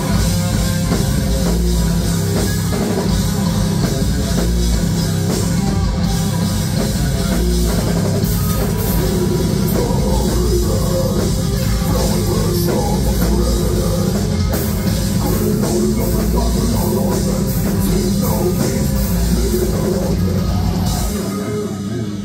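A metal band playing live at full volume, with distorted electric guitar, bass guitar, a pounding drum kit and vocals. The low end drops out about a second before the end.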